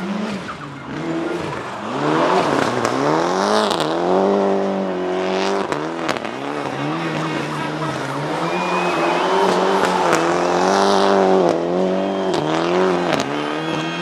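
Rally car engine revving hard and dropping back over and over, its pitch rising and falling many times, with tyres squealing as the car slides through a tight turn.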